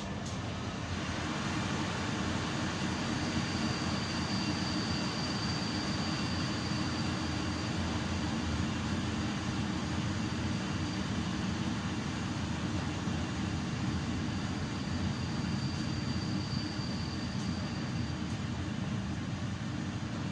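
Intercity passenger train running along the track, heard from inside at its rear window: a steady rumble of wheels on rails that grows a little louder in the first couple of seconds. A faint high whine comes in twice, about a few seconds in and again near the end.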